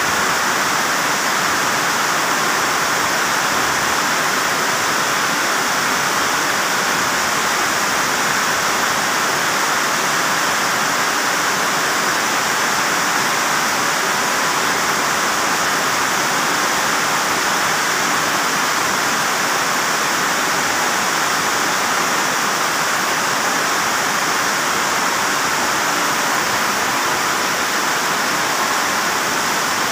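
Heavy rain pouring down in a loud, steady hiss that never lets up, heard from under a corrugated metal roof.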